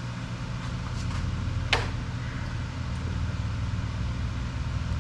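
An engine running steadily with a low hum, and one sharp knock a little under two seconds in.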